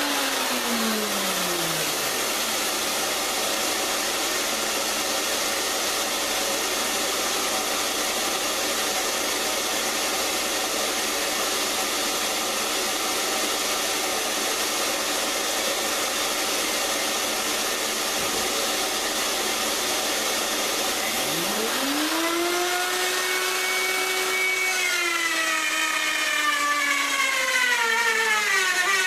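Woodworking router winding down, with a steady whir going on; then the router is switched on again about three quarters of the way through, its whine rising quickly and then sinking slowly in pitch as the bit takes load in the cut.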